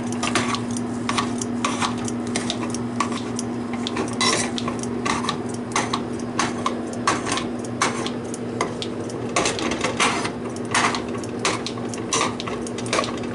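A utensil scraping and clacking against a small saucepan while breaking up raw ground beef: irregular clinks and scrapes, several a second, over a steady low hum.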